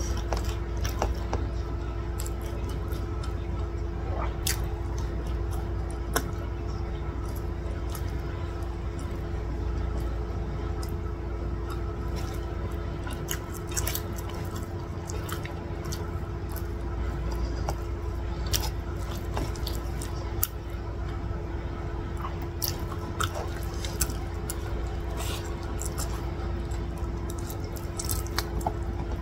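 Close-up mouth sounds of eating rice and chicken in gravy by hand: wet smacking, squishing and sharp lip and tongue clicks scattered irregularly, over a steady background hum.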